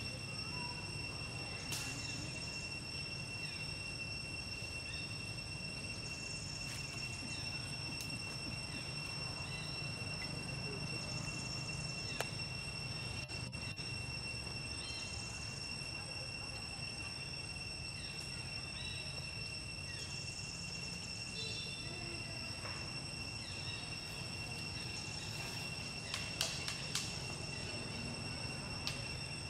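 Steady high-pitched insect drone, one unbroken tone, over a low rumble of outdoor background noise, with a few sharp clicks near the end.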